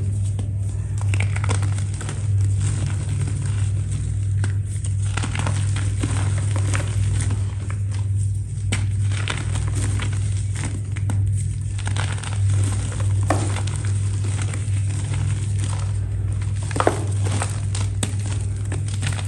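Continuous crisp crackling and crunching, with many small snaps, as a brittle, crispy material is crumbled and crushed. A steady low hum runs underneath.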